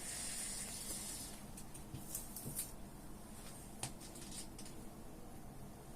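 Faint high hiss from a smothered dry-fuel tablet burning out under an overturned glass, fading over the first second or so, followed by scattered small crackles.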